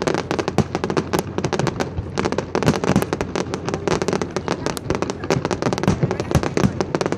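Fireworks display: a dense, continuous barrage of bursts and crackling, many sharp reports a second with no pause.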